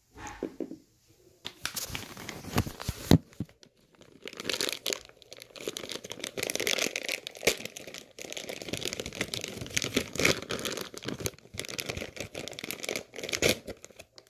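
Irregular, scratchy rustling and crinkling close to the microphone, in uneven stretches with a sharp loud crackle about three seconds in.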